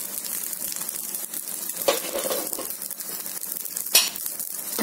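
Oil-brushed hawawshi, meat-stuffed flatbread, sizzling steadily in a hot frying pan, with a sharp knock about two seconds in and a louder one about four seconds in.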